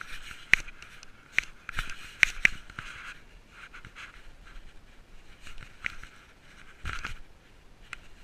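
Rubbing and knocking noise from a GoPro worn by a cat as it moves close against weathered wooden boards and past twigs: irregular sharp clicks and scrapes, thickest in the first few seconds, with another burst about seven seconds in.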